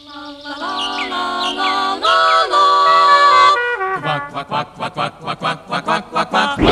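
A cartoon animal choir singing on cue, a cappella: chords held in several voices for about three and a half seconds, then short, clipped notes at about five a second.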